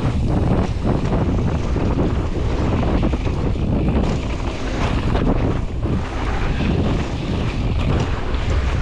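Wind buffeting the camera microphone of a mountain bike descending a dirt track, steady and heavy in the low end, with the bike's tyres and frame rattling and crunching over the bumpy ground.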